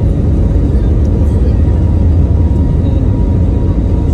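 Airbus A320 heard from inside the cabin over the wing: a steady, deep rumble of the jet engines and the aircraft rolling along the runway, with a faint steady whine above it.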